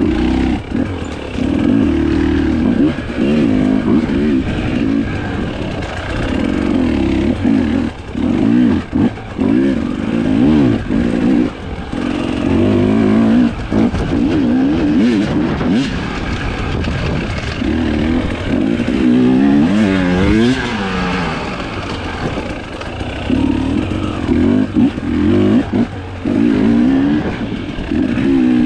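Husqvarna TE 300i single-cylinder two-stroke enduro engine being ridden off-road, revving up and down constantly. The pitch rises and falls every second or two, with short drops where the throttle is shut.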